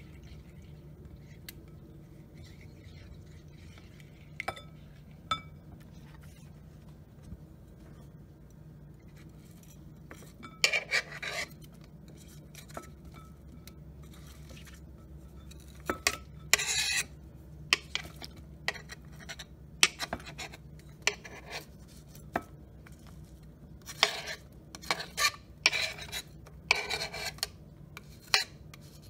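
A spatula scraping thinly sliced cucumbers and onions off a wooden cutting board into a glass bowl: bursts of scraping and clinking, starting about a third of the way in and coming more often near the end, over a low steady hum.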